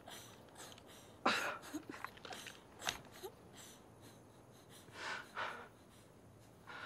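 A man's ragged, heavy breathing with sharp gasps and stifled sobs; the loudest gasp comes about a second in.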